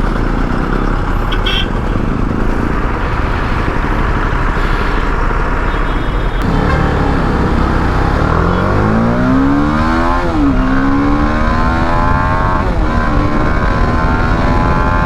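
TVS Apache RR310's single-cylinder engine through its stock exhaust, under heavy wind rush: after a steady stretch the revs climb hard, drop at a gear change about ten seconds in, climb again and drop at another shift a couple of seconds later.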